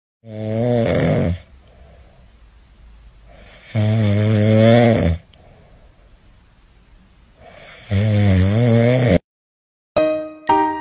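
A small long-haired dog snoring while asleep: three long, wavering snores about four seconds apart, with softer breaths between them. Piano music starts near the end.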